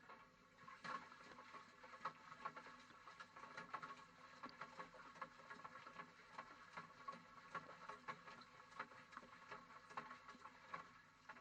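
Irregular knocks and clatter with water sloshing, heard by a GoPro tumbling inside a washing machine drum.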